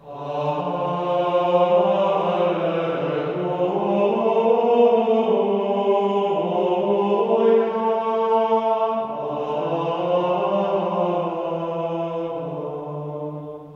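Slow sung plainchant: voices hold long notes that change pitch every few seconds, fading out near the end.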